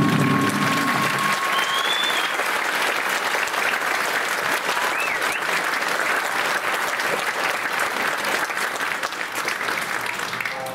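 Audience applauding at the end of a shamisen and taiko performance, over the last fading note of the music in the first second or so. The clapping dies down near the end.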